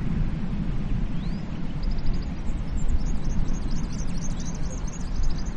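Steady low rumble of sea waves, with small birds chirping in quick high notes that thicken from about two seconds in.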